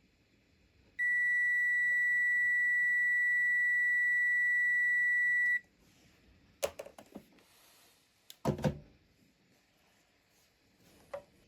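Multimeter continuity buzzer giving one steady high beep for about four and a half seconds, the sign of an unbroken wire connection. A few short clicks and knocks from the test probes and handling follow.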